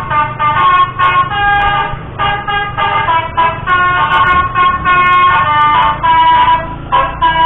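Basuri telolet horn, a multi-tone musical vehicle horn, playing a tune of held notes that step from pitch to pitch with short breaks, over a steady low rumble.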